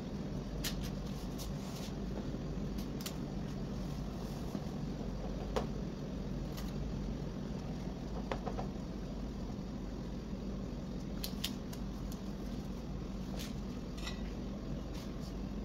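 Steady low background hum with scattered faint clicks and taps, as gloved hands press dough in a lined metal baking tray.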